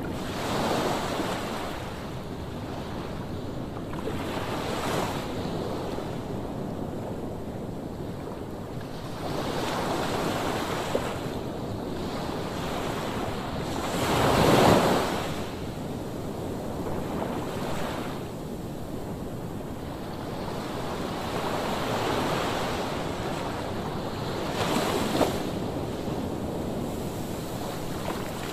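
Rough surf breaking on a sandy beach: a continuous rush of waves that swells every few seconds as each wave breaks. The biggest break comes about halfway through.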